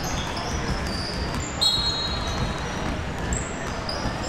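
Indoor basketball game: many short, high-pitched squeaks from sneakers on the court floor, over a steady background of play and hall noise.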